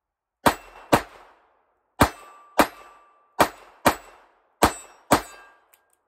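Eight shots of Winchester white box bulk .22 LR fired from a Ruger LCR 8-shot double-action revolver, emptying the cylinder, in four quick pairs about half a second apart, each crack trailing off in a short ring. A faint click comes just after the last shot.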